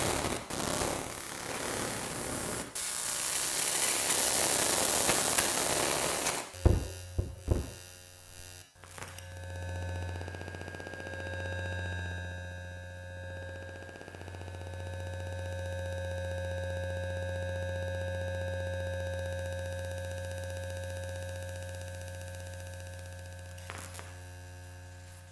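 Dense static hiss for about six seconds, broken off by a few sharp clicks, then a steady low electrical hum with faint higher overtones that slowly fades.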